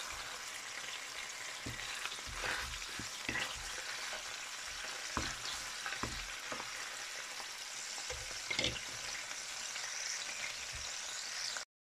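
Bacon-wrapped chicken rolls frying in oil on low heat, a steady sizzle, with a string of short knocks and scrapes from wooden spatulas turning the rolls in the pan. The sound cuts off suddenly near the end.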